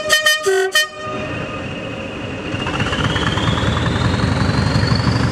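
Diesel locomotive horn giving a string of short toots in the first second, then the locomotive's engine growing louder as the train approaches, with a whine that rises steadily in pitch.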